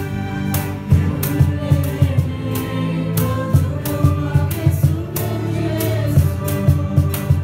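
A group of voices singing a Christmas carol over band accompaniment, with deep bass notes and a steady drum beat.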